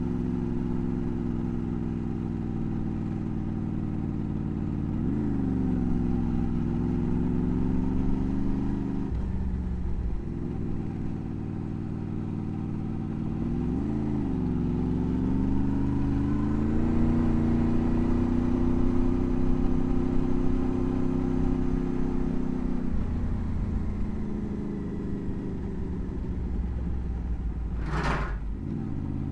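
Motorcycle engine running under way, its note dropping and climbing again at gear changes about 5 and 14 seconds in, then easing off. A brief whoosh comes near the end.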